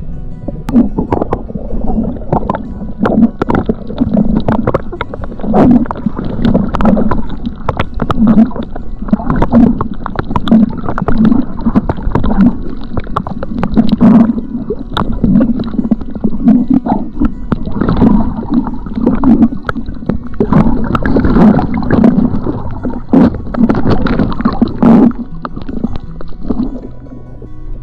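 Muffled underwater sound picked up by a submerged camera: water gurgling and sloshing in pulses roughly once a second, with many small clicks and crackles from bubbles and water moving against the housing.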